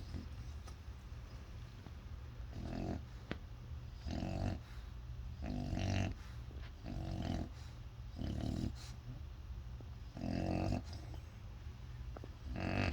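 A sleeping dog snoring loudly and rhythmically, with seven deep, rasping snores, one every one and a half to two seconds.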